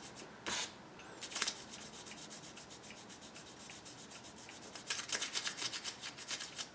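Faint, quick back-and-forth rubbing of a fingertip over a freshly painted clock face, wiping excess paint off the flat surface so it stays only in the recessed numerals. A run of faster, louder strokes comes about five seconds in.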